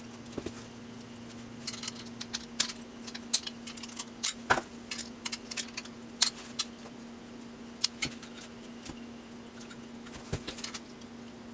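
Irregular light clicks and taps of hands working small parts on a transmission being taken apart, over a steady low hum.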